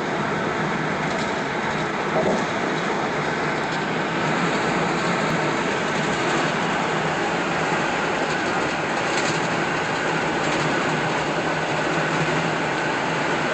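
Steady road and tyre noise of a car cruising on a concrete freeway, heard from inside the cabin.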